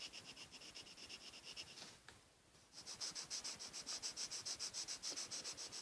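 Colored pencil scratching on paper in back-and-forth shading strokes. They are faint and scattered at first, then settle into a steady run of about five strokes a second from about halfway through.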